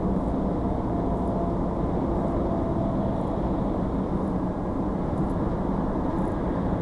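Steady road and engine noise of a vehicle cruising on a motorway, picked up by a dashcam inside the cab.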